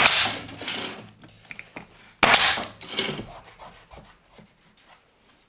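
Bostitch nail gun firing twice into floor patch boards, about two seconds apart; each shot is a sharp crack followed by a hiss that fades over about a second.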